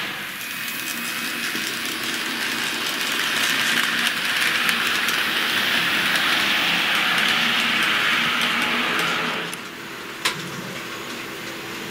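TT-gauge model train rolling along the layout track, with a steady rush of wheels on rail that grows louder as the wagons pass. It drops off sharply near the end, followed by a single sharp click.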